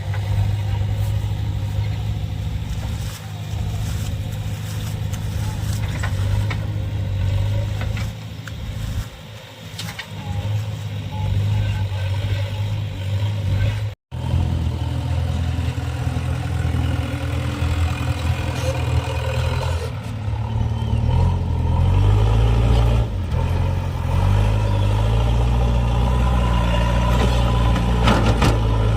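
Diesel engines of a backhoe loader and farm tractor running steadily under work. The sound cuts out for an instant about halfway, and in the second half the engine note rises and gets louder.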